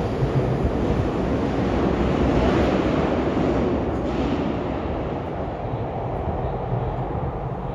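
Tokyu 5050 series electric train pulling out and running away down an underground tunnel. Its running noise swells to a peak about three seconds in, then slowly fades as it recedes.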